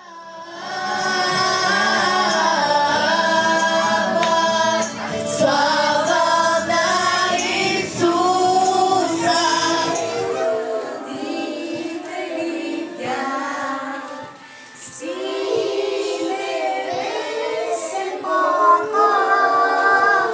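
A church congregation, many of them children, singing a Christmas song together loudly. The singing dips briefly about two-thirds of the way through, then picks up again.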